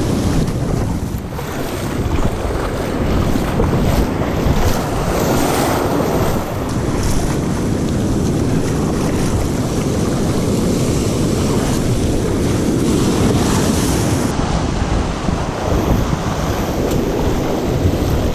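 Rough sea surf washing and breaking over rocks, with wind buffeting the microphone.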